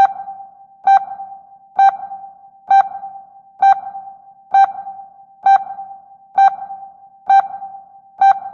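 Ship sonar pinging: a single clear tone struck a little faster than once a second, ten pings in all. Each ping starts sharply and trails off in a long fading ring just before the next.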